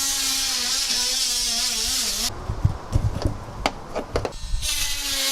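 Power tool sawing a hole in a computer case to make room for a graphics card: a steady whine with a hiss of cutting. It stops about two seconds in, leaving a few clicks and knocks, and starts cutting again near the end.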